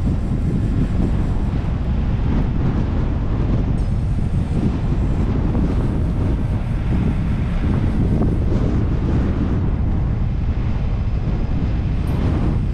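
Car driving along a sand beach: a steady low rumble of the car's running noise mixed with wind buffeting the microphone.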